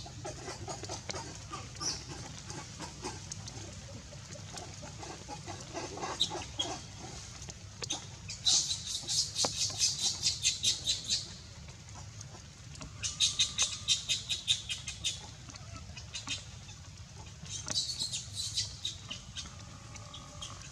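A bird calling in fast runs of high, evenly spaced chirps, about five or six a second, in three bouts of two to three seconds each.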